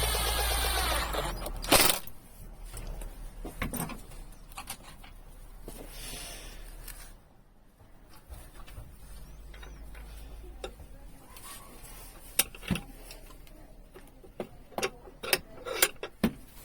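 A steady noisy machine, likely a power tool, runs and stops about two seconds in with a sharp click. Scattered clicks and knocks follow, the sound of wooden and metal parts being handled, with a cluster of sharp knocks near the end.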